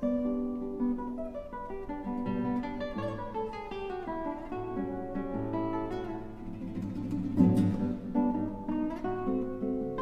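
Solo classical guitar playing plucked notes that ring over one another, with a loud chord about seven and a half seconds in.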